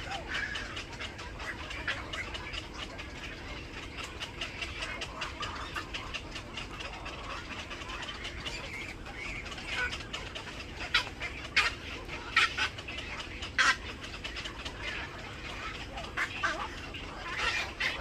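Birds calling: a dense, continuous chatter of short chirps, with a few louder, sharper calls between about 11 and 14 seconds in.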